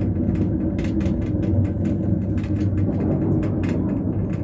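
Cable car cabin riding along its cable: a steady low rumble with a faint hum, broken by irregular clicks and rattles.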